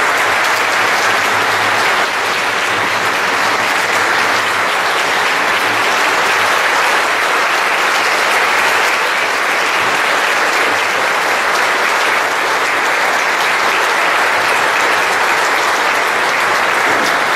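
Audience applauding: a long, steady round of clapping welcoming a speaker to the stage.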